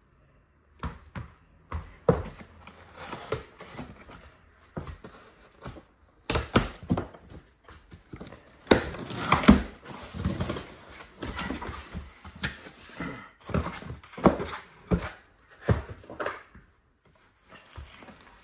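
Corrugated cardboard shipping box being opened by hand: packing tape slit with a small cutter and the flaps pulled open, giving irregular scrapes, rustles and knocks of cardboard.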